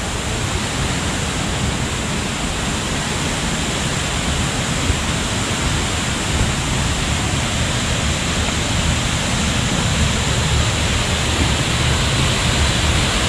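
Large waterfall's steady rushing roar of falling water, close by, growing slightly louder toward the end.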